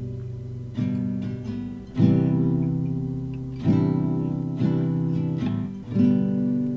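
Background music: a guitar strumming slow chords, a new chord about every second or two, each left to ring out.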